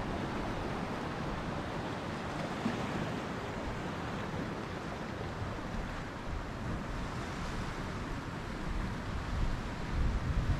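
Surf washing onto a rocky beach under a steady wind. About nine seconds in, gusts start buffeting the microphone with a low rumble.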